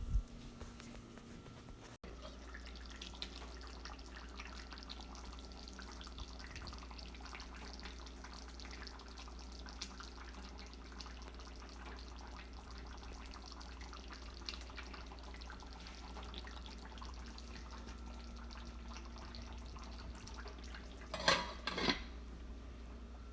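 A pot of food bubbling and crackling on the stove over a steady low hum. Near the end there are two loud clatters of cookware.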